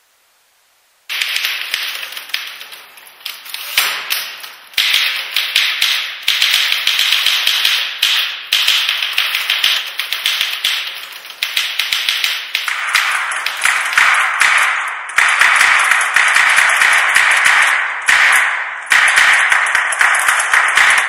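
A dense, rapid clatter of taps and clicks. It starts suddenly about a second in, after near silence, and runs on in repeated surges that each fade and then jump back up.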